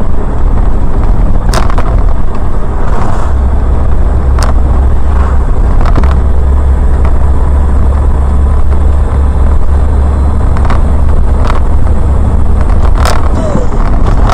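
A car driving on a highway, heard from inside the cabin: a loud, steady low rumble of engine and tyres, with a few sharp knocks every few seconds.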